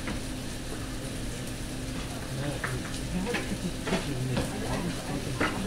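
Food sizzling on a diner's flat-top griddle over the steady hum of the kitchen exhaust hood, with a few sharp clinks of cookware and utensils in the second half.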